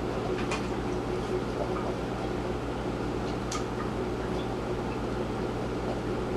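Steady room tone: a constant low electrical hum and hiss, with a few faint clicks, about half a second in and about three and a half seconds in.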